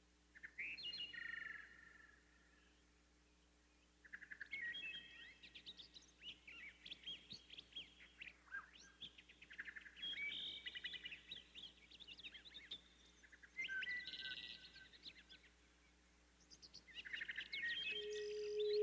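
Small songbirds chirping and twittering in bursts of quick high notes, with a short pause after the first burst. Near the end a steady low tone comes in.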